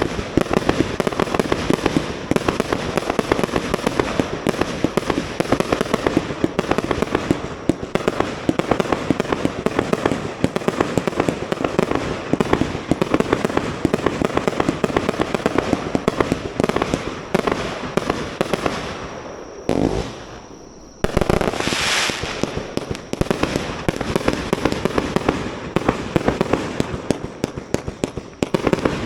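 Fireworks display: a dense, unbroken barrage of shell bursts and crackling reports. It drops away briefly about two-thirds of the way through, and a loud burst starts it again.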